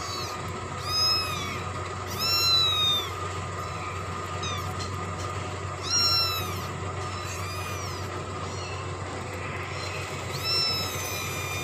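A cat mewing: about half a dozen short, high-pitched mews spaced a second or several apart, each rising and then falling in pitch, over a faint steady hum.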